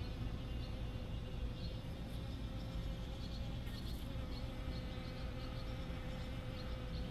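Bees buzzing in flight: a steady hum over a low rumble, with faint short high chirps now and then.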